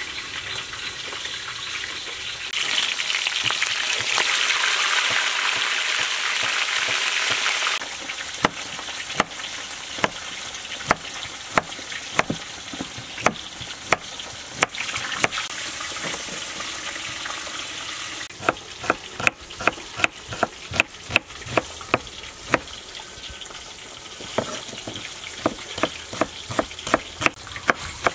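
Chef's knife striking a wooden cutting board as carrot is sliced and red chillies are chopped. The strikes start about eight seconds in, spaced singly at first, then come in quick runs of chopping. Under them runs a steady frying sizzle, louder for the first several seconds.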